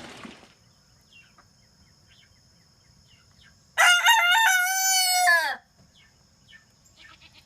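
A rooster crowing once, a loud call of about two seconds beginning some four seconds in, with a stepped start and a long held note that drops away at the end.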